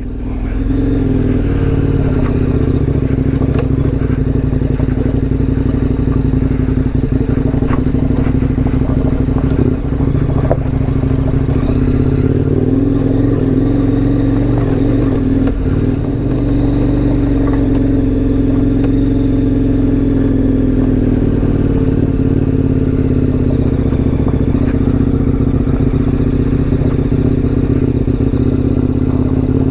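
KTM 1090 Adventure R's V-twin engine running at a steady, even pitch while the bike is ridden, with slight rises and falls in revs. A few light knocks and rattles come through it.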